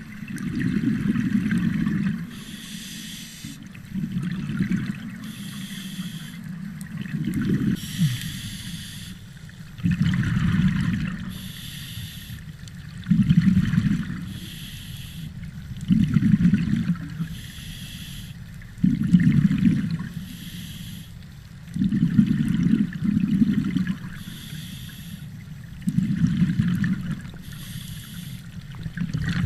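Scuba diver breathing through a regulator underwater: a hissing inhale through the demand valve, then a bubbling rush of exhaled air, repeating about every three seconds.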